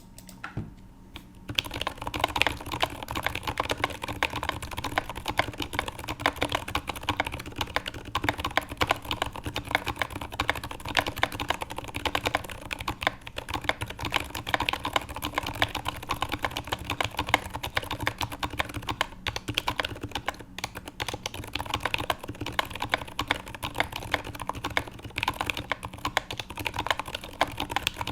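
Fast, continuous typing on a custom TX HJ-CP mechanical keyboard with lubed and filmed Zeal Zilent 62g silent tactile switches, GMK keycaps and an acrylic plate. The typing starts about a second and a half in, with a couple of brief pauses.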